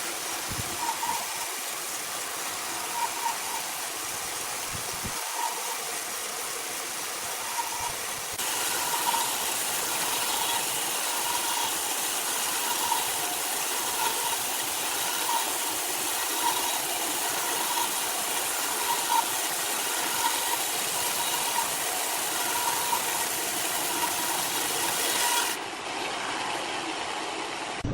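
Machinery running with a steady hiss, getting louder about eight seconds in and changing abruptly near the end.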